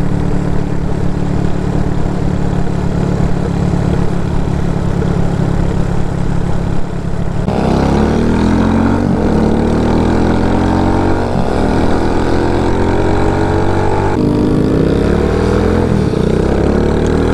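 Single-cylinder CG250 motorcycle engine in an RPS Condor minibike, heard from the bike while riding. It holds steady revs at first, then about halfway through it climbs in pitch as it accelerates. Near the end a gear change drops the revs and it pulls up again.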